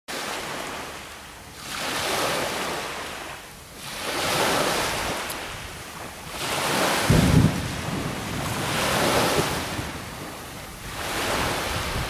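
Black Sea surf washing ashore in repeated swells about every two to three seconds, with wind on the microphone. A short low rumble stands out just past halfway.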